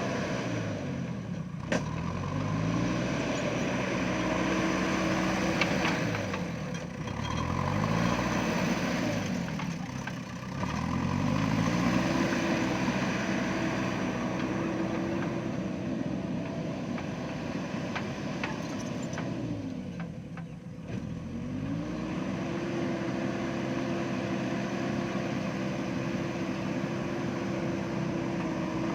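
JCB backhoe loader's diesel engine running under work, its speed repeatedly dropping low and climbing back up, about four times. A sharp click sounds about two seconds in.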